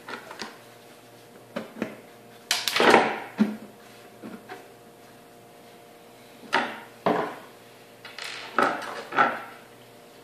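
Handling noise from a benchtop centrifuge's plastic housing being gripped and shifted on a wooden desk: scattered knocks, clunks and short scrapes, the loudest and longest about three seconds in, over a faint steady hum.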